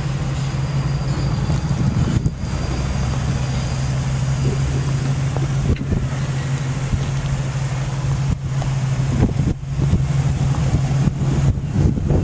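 Car engine idling steadily, a constant low hum with outdoor noise over it.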